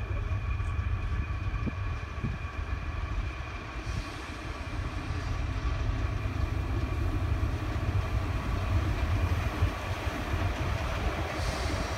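SBB Ae 6/6 electric locomotive running light toward the listener, getting gradually louder as it approaches. A deep rumble sits under a steady high whine.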